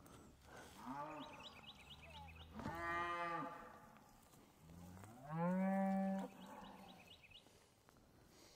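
Cattle mooing: a faint moo near the start, then two long moos about three and five seconds in, the second the loudest.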